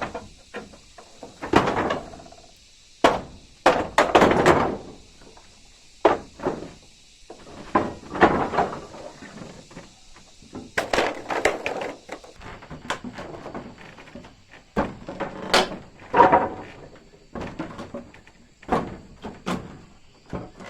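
Irregular knocks, thuds and bangs of wood being worked or handled, a dozen or so uneven strikes with gaps between them rather than a steady hammering rhythm.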